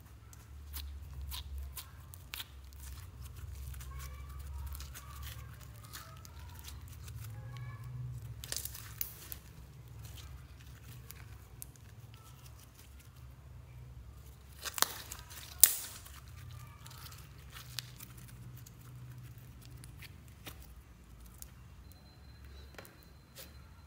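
Hands squeezing and stretching a soft slime: sticky crackling and clicking throughout, with two loud sharp pops about two-thirds of the way through.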